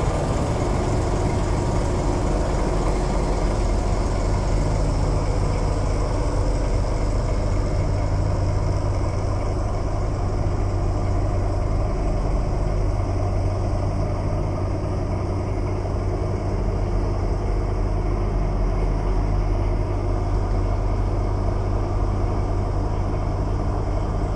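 Heavy truck engine idling steadily, a low, even hum.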